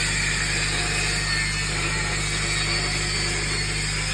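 TIG welding arc buzzing and hissing steadily, with a constant low electrical hum.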